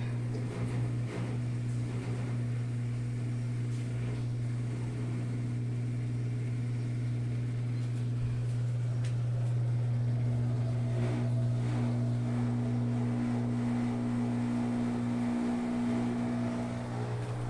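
Brastemp 12 kg BWK12 washing machine running with a steady low hum and a few faint ticks.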